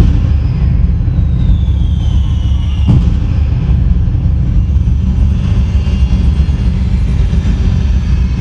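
Recorded fireworks soundtrack played over the hall's loudspeakers: a whistle falling in pitch ends in a sharp bang about three seconds in, over a dense, continuous low rumble of booms.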